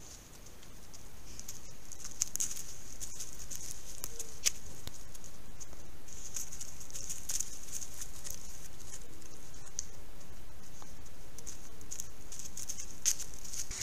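Wild boar moving and rooting in dry leaf litter close to a trail camera: steady rustling with scattered sharp crackles of leaves and twigs, over a continuous high-pitched hiss.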